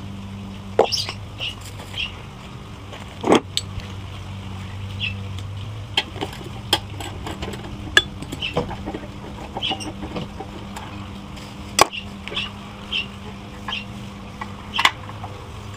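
Metal clinks and knocks of tools and engine parts being handled while a GX390-clone engine is taken apart, scattered and irregular, the loudest about three seconds in, near twelve seconds and near the end, over a steady low hum.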